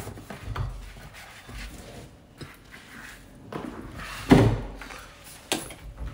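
Rustling and knocks from a handheld phone being carried about, with a louder thump about four seconds in and a sharp click about a second later.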